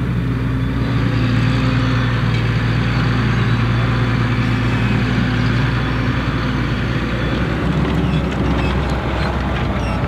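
Massey Ferguson 7715 Dyna VT tractor's six-cylinder diesel engine running steadily under load while pulling a Pöttinger Servo 35S Plus five-furrow reversible plough through the soil.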